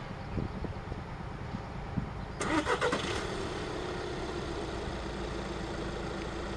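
An engine cranks and starts about two and a half seconds in, then keeps running with a steady hum, over a continuous low rumble.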